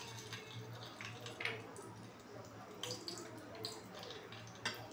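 Fenugreek seeds frying in hot oil in a kadai for tempering: a faint sizzle with a few sharp crackles as the seeds start to splutter.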